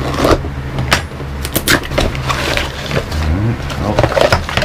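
A cardboard parts box being handled and opened by hand: a string of sharp rustles, scrapes and knocks from the cardboard and the parts inside, over a steady low hum.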